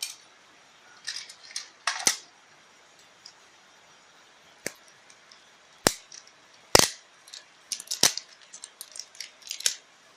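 Irregular sharp clicks and snaps of hard objects being handled, about a dozen spread out with gaps, the loudest about two-thirds of the way through.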